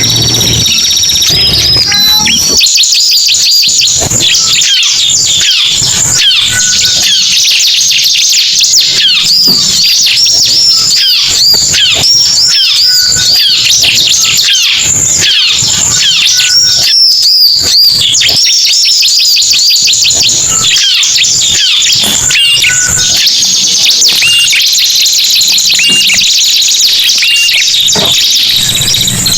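Bird-lure recording of small songbirds, ciblek (bar-winged prinia) and prenjak, calling loudly and continuously in fast, high-pitched chirps and trills that overlap densely.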